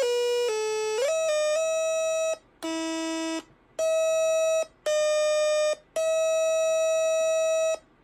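Music: a simple electronic melody in a bright, buzzy tone, a few short notes followed by long held notes with brief silent breaks between them.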